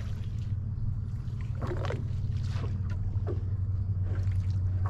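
Steady low rumble of wind on the microphone, with a few faint short splashes from hassa moving in the flooded grass at the water's edge.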